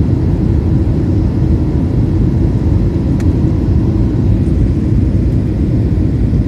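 Steady low rumble of an airliner in flight, the engines and rushing air heard from inside the passenger cabin.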